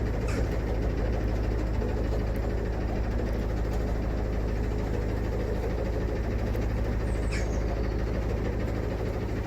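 Narrowboat diesel engine running steadily under way, a low, even chugging. A short falling chirp comes once about seven seconds in.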